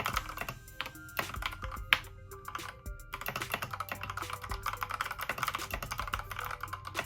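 Rapid typing on an Akko Sailor Moon mechanical keyboard: a dense run of loud key clacks that pauses briefly about two seconds in, then picks up again. Background music plays underneath.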